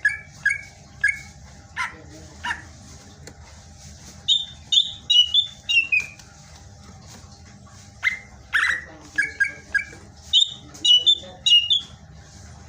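Green leafbird (cucak ijo) singing in loud bursts of short, sharp whistled notes, grouped in quick runs of three to five, some runs pitched high and others lower with notes sliding down in pitch.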